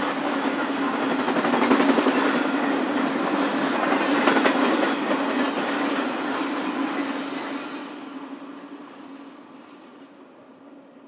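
Freight cars of an intermodal train rolling past on the rails, a steady rush of wheels on track with some clickety-clack. It fades away over the last few seconds as the train passes on.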